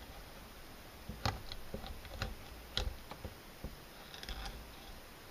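Light, irregular clicks and taps of a blade cutting away the fin and rib bones of a filleted tilefish, the sharpest a little over a second in and near three seconds.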